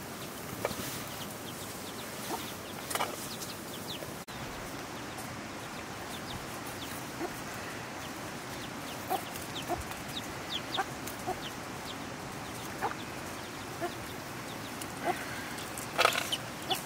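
Chickens clucking, with short high chirps scattered all through over a low steady background. A few light knocks sound, the loudest one near the end.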